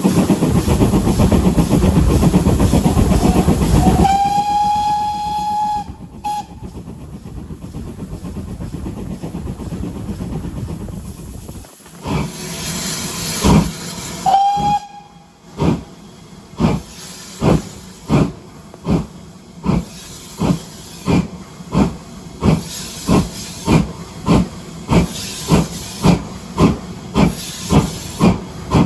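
A GWR Hall class steam locomotive, 4930 Hagley Hall, blowing off steam with a loud hiss, then sounding its whistle for about two seconds, and giving a second short toot about ten seconds later. It then starts away: exhaust beats begin, evenly spaced and slowly quickening to about one and a half a second as the train departs.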